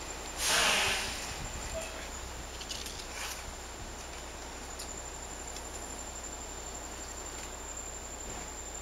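Steady high-pitched insect drone over a background hiss, with a brief loud rustle about half a second in and a fainter one around three seconds.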